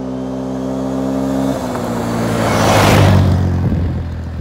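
A four-wheeler (ATV) engine approaches at speed and passes close by. The engine note drops suddenly about a second and a half in, and it is loudest about three seconds in, with a rush of tyre and gravel noise, then fades away.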